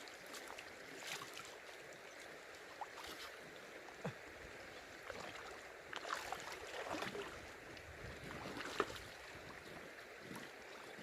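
Shallow river water sloshing and hissing, with scattered small knocks and clinks from handling gear at the water's edge and one sharper knock near the end.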